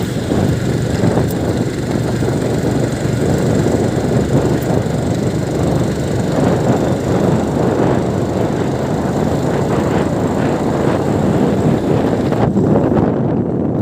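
Steady rumble and noise of a moving road vehicle, heard from on board. Near the end the higher hiss drops away suddenly.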